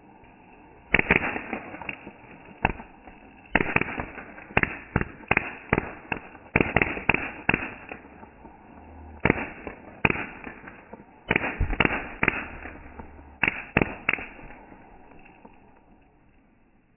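Firework spraying sparks and going off in a rapid series of sharp cracks and bangs in irregular clusters, which die away near the end.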